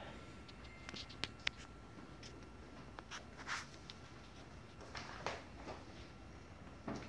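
Sheets of paper rustling, with two sharp light clicks a little over a second in and a few soft footsteps, in a quiet room.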